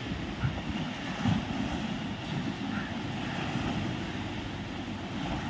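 Wind buffeting the microphone, a steady low rumble, over small waves washing against the shoreline rocks.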